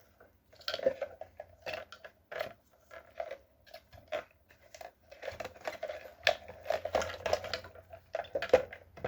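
Parts of a car's in-tank fuel pump assembly being taken apart by hand: irregular clicks, taps and scrapes, busier from about five seconds in.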